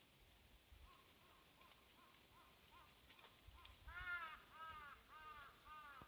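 Crows cawing in a run of short calls, faint at first and louder over the last two seconds.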